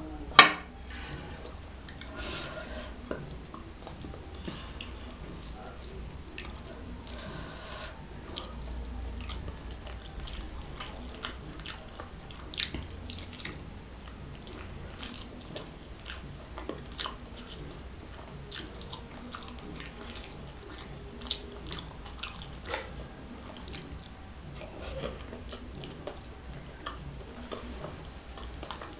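Close-miked chewing and wet mouth sounds of eating curried boiled eggs and rice by hand, with many small scattered smacks and clicks. A glass mug is set down on the table with a sharp knock right at the start.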